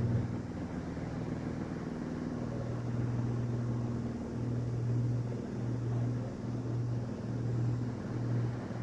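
Electric fan running: a steady motor hum under the rush of moving air. From about four seconds in, the hum pulses evenly, roughly every two-thirds of a second.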